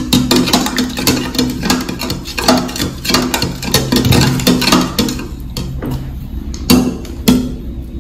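Metal spoon clinking and scraping against the inside of a plastic cup of water, stirring salt in to dissolve it: quick irregular clinks, with a couple of louder taps near the end.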